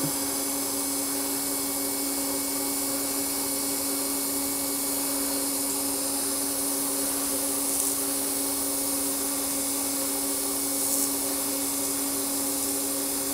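TIG welding arc on carbon steel pipe during the hot pass, at a fixed 110 amps with 1/8-inch ER70S-6 filler: a steady hiss with a steady hum under it.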